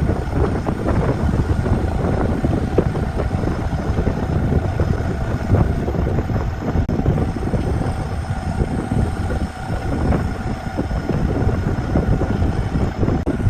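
Wood lathe running steadily under a cedar workpiece: a continuous mechanical drone with a faint steady hum on top.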